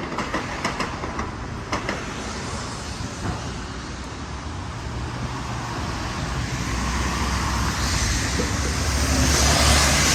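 Steady traffic noise. About halfway through, a low rumble and a hiss build and grow steadily louder as a vehicle draws near.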